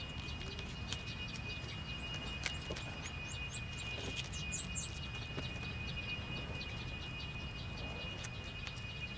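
Outdoor ambience: a small bird chirping a series of short, quick high notes between about two and five seconds in, over a low rumble and a faint steady high whine, with scattered light clicks.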